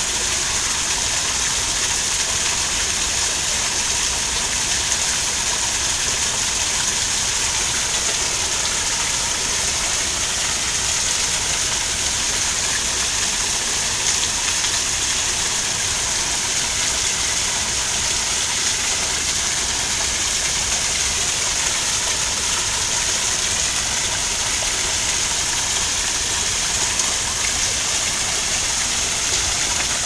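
Garden waterfall pouring steadily over rocks, a continuous rushing hiss of falling water.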